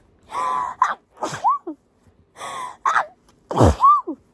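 A person's sneezing fit: three sneezes in quick succession, each after a gasping, half-voiced intake of breath, the last one the loudest.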